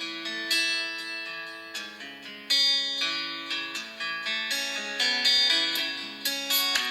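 Xiaomi Redmi A5 ringtone playing: a plucked-string, guitar-like melody of quick notes that each ring and fade, growing louder as it goes on.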